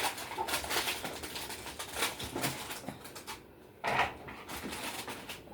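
Kitchen handling noises during vegetable prep: irregular clattering and rustling for the first few seconds, then one louder knock about four seconds in.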